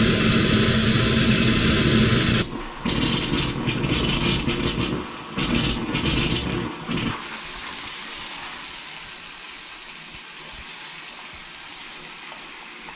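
Bathroom sink faucet running hot water to purge air from the lines of a newly installed water heater: loud and uneven for the first several seconds, then settling about seven seconds in to a steady, quieter flow into the basin.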